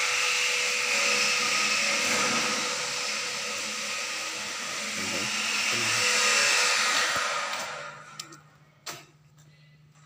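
Loud, steady rushing machine noise that fades away about eight seconds in, followed by a single click.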